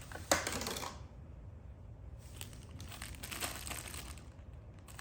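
Plastic packaging of a carburetor rebuild kit being torn open and crinkled, with a sharp click just after the start and scattered small rustles and clicks after it.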